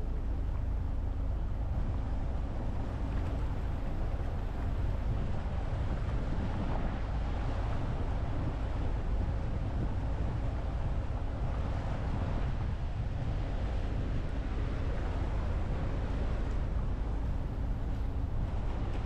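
Motorboat engine running at a steady cruise, a constant low rumble, with water rushing along the hull and wind on the microphone.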